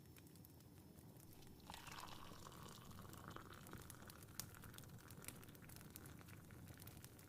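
Tea being poured into a cup: a liquid stream starts about two seconds in and runs on, slowly rising in pitch. Soft fireplace crackle ticks underneath.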